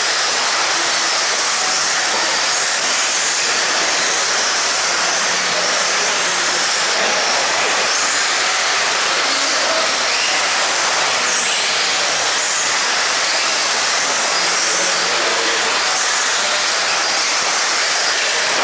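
A pack of radio-controlled 2WD off-road buggies racing, their electric motors whining and tyres hissing on the dirt, as a steady high-pitched hiss.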